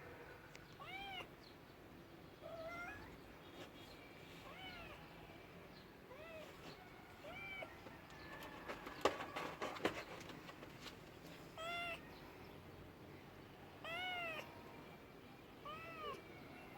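A cat meowing in short, separate meows, about eight of them spread out with pauses between. About halfway through, a quick clatter of clicks or knocks is the loudest sound.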